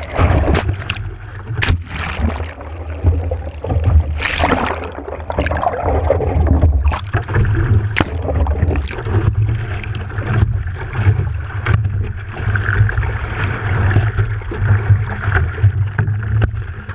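Turbulent water of breaking surf heard with the microphone underwater: a heavy, churning low rumble with scattered knocks and clicks.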